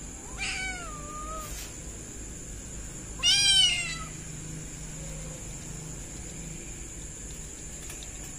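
Kitten meowing twice: one call about half a second in and a louder one about three seconds in, both falling in pitch at the end, over a steady high-pitched ringing.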